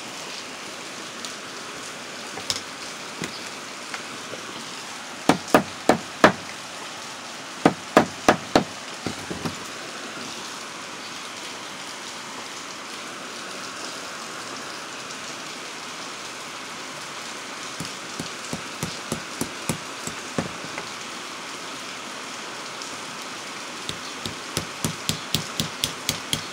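Hammer tapping on a small transformer's steel core laminations to knock loose plates that are stuck in place. The taps come in short runs: a few hard blows about five and eight seconds in, lighter taps later, and a quick series near the end.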